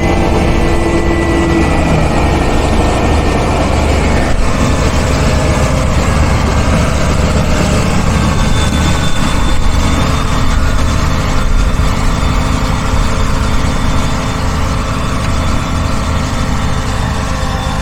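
Farm tractor's diesel engine running steadily and loudly.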